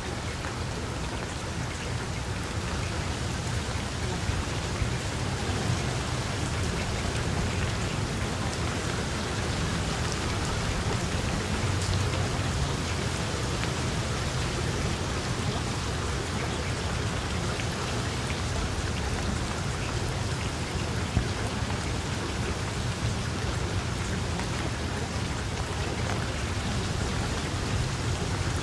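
Steady rain falling, an even hiss of drops with a constant low rumble underneath.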